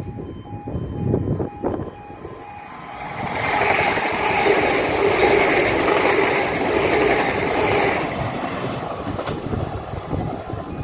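A train running past the platform, its noise building about three seconds in, loudest for about five seconds, then easing near the end. Wind buffets the microphone at the start, and a pulsed beeping tone sounds before and after the train is loudest.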